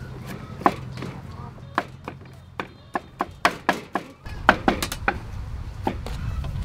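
Cleaver chopping on a wooden cutting board: a string of sharp, uneven knocks, several a second at times.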